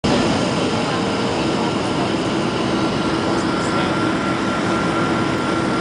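Cabin noise of a Boeing 737-300 descending on approach: the CFM56-3 turbofan engines and the airflow make a steady rush, with a faint steady whine high up and a low hum.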